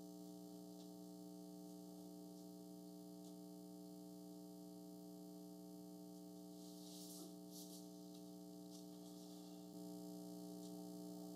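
Near silence: room tone with a steady low electrical hum, and a couple of faint rustles about seven seconds in.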